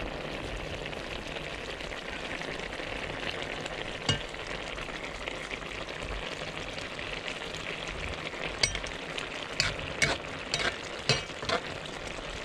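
Food frying in a pan with a steady sizzle. There is one sharp knock of a cooking utensil against the pan about four seconds in and a run of several knocks near the end, as the pan is stirred.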